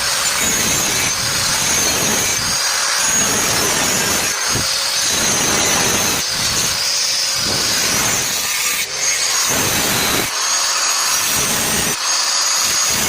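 Power tool running continuously while working the hollow steel or wire mesh, a loud steady high whine with brief easings of load every second or two.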